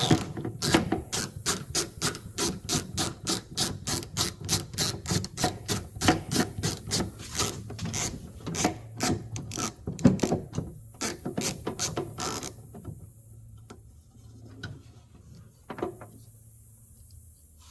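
Ratchet wrench clicking in quick, even strokes, about three a second, as it backs off an 8mm nut holding the exterior door handle of a Dodge Ram; the clicking stops about twelve seconds in, followed by a few faint knocks.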